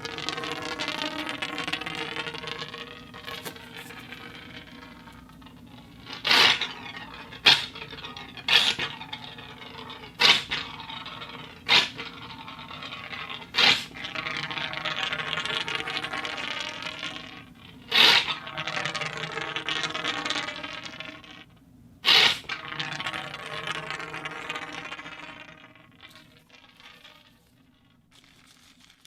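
A steel ball rolling inside a metal conduit, a continuous ringing, rolling rumble broken by about eight sharp clacks as the ball strikes. The rolling dies away near the end.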